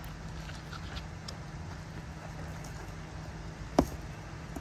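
Suzuki Jimny JB74's 1.5-litre four-cylinder engine idling steadily while stopped on the rocks. A single sharp knock near the end.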